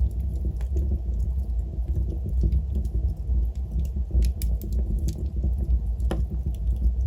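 Wood fire burning in a fireplace, with a steady low rumble under scattered small crackles and pops, and one louder pop about six seconds in.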